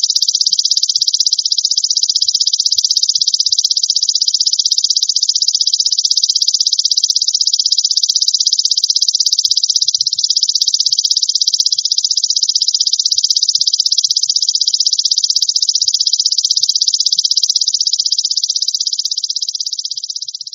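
Belalang emas (golden grasshopper) call: a continuous, rapid, high-pitched buzzing trill that starts abruptly, eases slightly near the end and cuts off.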